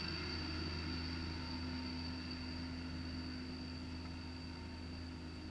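A steady, distant engine hum with a thin high whine, slowly fading away.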